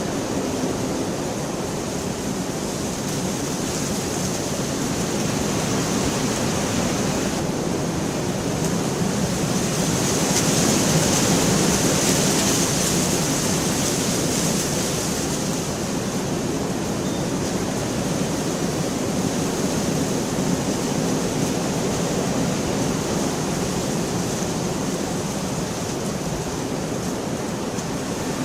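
Steady heavy rainfall, a continuous hiss that swells louder for a few seconds around the middle.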